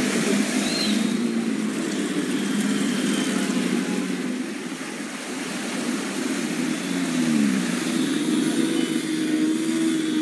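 Car and scooter engines running as they push through floodwater, over a steady wash of noise from the water. About seven seconds in, one engine's pitch drops.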